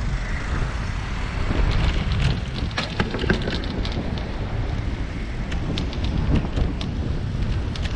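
Wind buffeting the microphone of a bicycle-mounted camera while riding, over a steady low rumble, with scattered light clicks and knocks.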